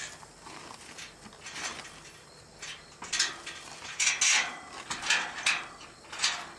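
Metal pipe gate worked by hand from the saddle: a series of short rattles and scrapes from about halfway through, the loudest a little after the middle.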